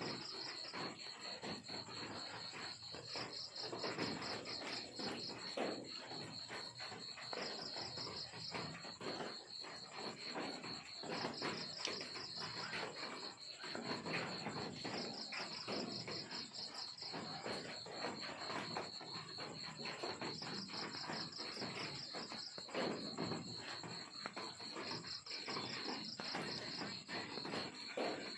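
Crickets chirping: a steady high trill runs throughout, with louder pulsing chirp bouts every few seconds. Scattered faint clicks and rustles sound underneath.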